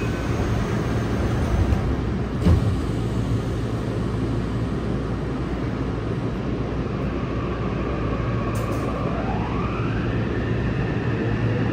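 Subway car interior with a steady low rumble and a single knock about two and a half seconds in. About eight and a half seconds in, the whine of the train's Mitsubishi IGBT-VVVF traction inverter rises in pitch and then levels off as the train pulls away.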